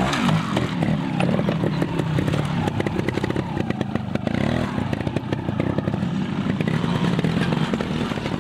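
Trials motorcycle engine revving up and down in quick throttle blips as the bike is worked over rocks and concrete obstacles, with a crackly exhaust.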